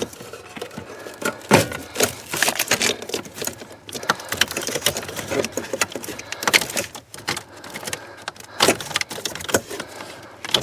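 Plastic wiring harness connectors behind a Toyota Camry dash being unclipped and pulled apart, with loose wiring moving about. It sounds as irregular clicks and rattles, with sharper knocks about a second and a half in and again near the end.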